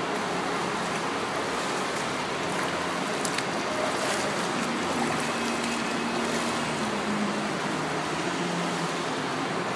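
Steady water splashing and churning from a swimmer's freestyle arm strokes close by, over the constant noise of an indoor pool.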